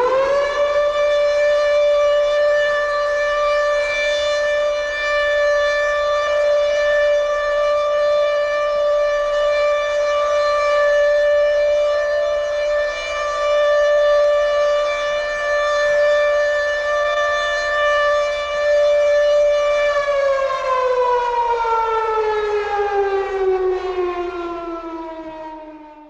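Air raid siren sounding one long, steady high tone after winding up to full pitch at the very start. Over the last six seconds it winds down in a slow falling wail, then cuts off.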